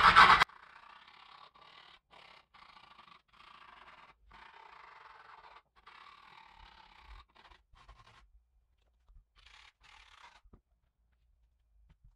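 A screwdriver shaft scraped along skateboard griptape over the edge of the deck, scoring the grit to mark the outline for cutting. It begins with a loud burst that cuts off abruptly, then a series of quieter raspy scraping strokes with short pauses between them.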